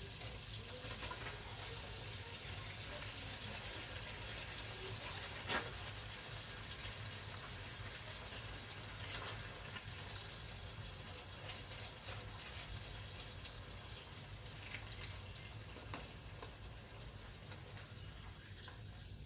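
Thin beef steaks sizzling in oil in a skillet, a steady hiss, with a few sharp clicks of metal tongs against the pan.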